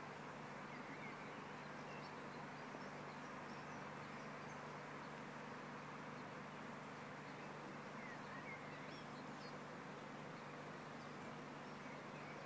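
Faint outdoor ambience: a steady background hiss and low hum, with scattered faint bird chirps from the trees.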